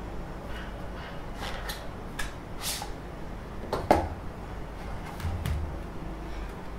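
Handling noises of a 3D-printed TPU soft case and a mini laptop being slid out of it and set down on a desk: scattered light scrapes and clicks, with a knock about four seconds in and a softer thud a little after.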